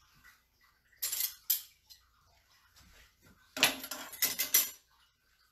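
Cutlery clinking and clattering against a plate as French toast is sliced up: two sharp clinks about a second in, then a longer run of clatter in the second half.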